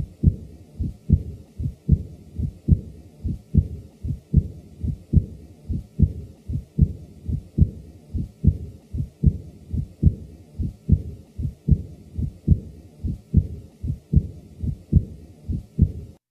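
A heartbeat heard through a stethoscope: even, repeating lub-dub thumps, each second sound followed by a soft early diastolic murmur, the blowing murmur of mild aortic regurgitation.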